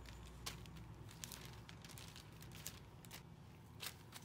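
Faint crinkling of a thin plastic bag sheet as floured rounds of dough are handled and stacked on it, with a few soft rustles and clicks.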